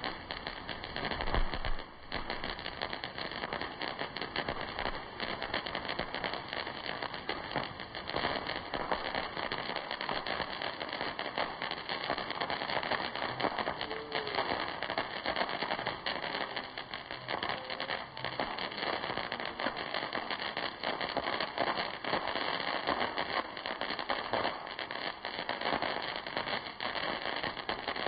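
Three-jet ground fountain firework spraying sparks with a steady hissing rush, under dense crackling and popping from fireworks around it. There is a louder thump about a second and a half in.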